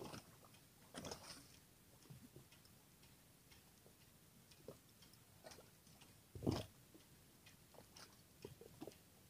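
Near silence with faint, irregular clicks scattered throughout and one dull knock about six and a half seconds in.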